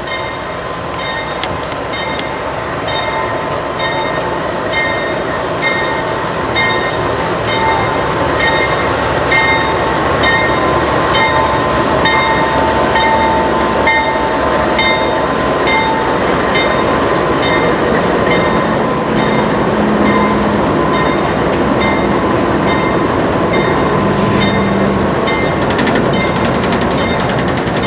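Locomotive bell ringing steadily at about two strokes a second, over the diesel rumble and rail noise of a slow-moving freight train coupling up.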